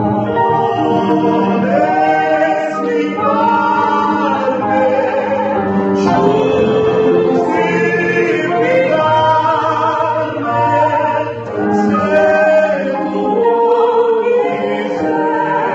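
A woman and a man singing a hymn together to piano accompaniment.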